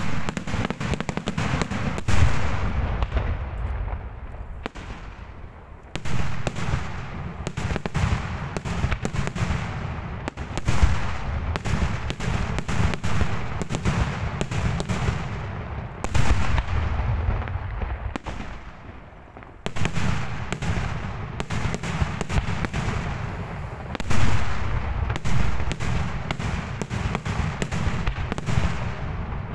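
Daytime fireworks display: dense, rapid volleys of sharp aerial bangs over a deep rumble. The barrage eases briefly about six seconds in and again just before twenty seconds, then picks up again.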